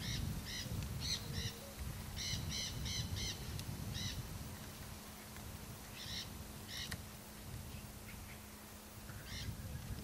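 Hyacinth macaws giving short calls: a quick run of them in the first four seconds, a pair around six to seven seconds and one more near the end, over a low rumble of breeze.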